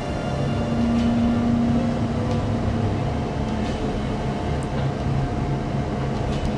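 Z-Tech 2800 ASD tug's engines and drives droning steadily, heard inside the wheelhouse while it holds station under a ship's bow. An extra tone rises over the drone about half a second in and fades out a couple of seconds later.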